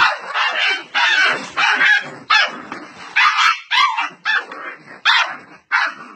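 A dog barking over and over, two to three sharp barks a second.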